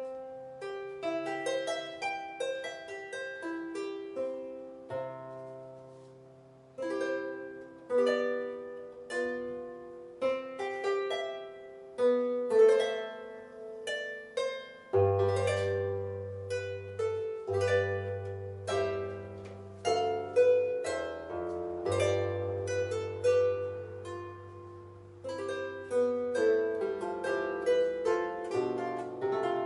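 Solo harp playing a piece of plucked melody notes and chords, starting suddenly; deeper ringing bass notes come in about halfway through.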